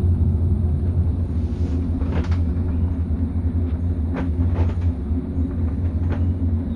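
Steady low rumble of a cable-car gondola cabin travelling along its cable, with a few short knocks or rattles of the cabin along the way.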